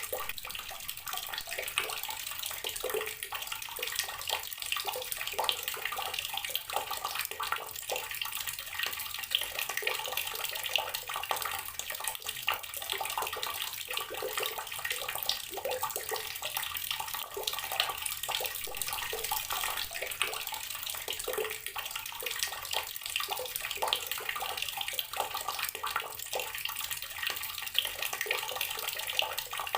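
Water from a tap pouring steadily into a container of water, a continuous splashing with small irregular drops and bubbles.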